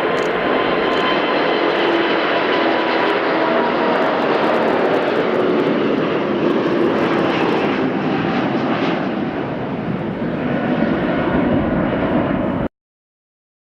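Airbus A380's four Rolls-Royce Trent 900 turbofans at high thrust on departure: a loud, steady jet roar with whining tones over it. The sound cuts off suddenly near the end.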